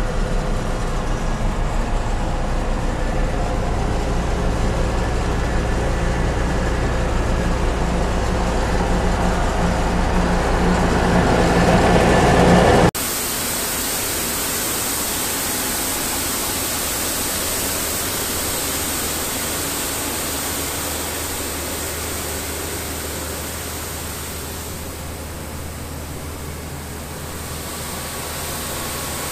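Schwarze A7 Tornado street sweeper's engine running, heard from the cab, with the hum growing louder over about twelve seconds. Then an abrupt cut to a steady, loud rushing noise as the running machine is heard from outside.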